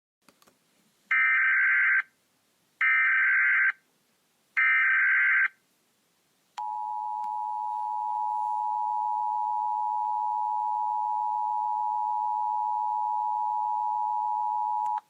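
Simulated Emergency Alert System tones: three short bursts of SAME digital header data, each just under a second long. About a second after the last burst comes the EAS attention signal, two steady tones sounded together, held for about eight and a half seconds until it cuts off.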